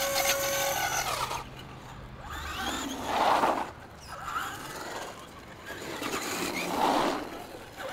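Traxxas Stampede RC monster truck driving on concrete, its tyres scrubbing as it turns, in two swells about three seconds and seven seconds in.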